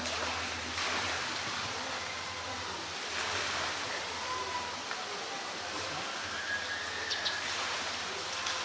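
Steady rushing noise of outdoor ambience, with a few faint short high tones.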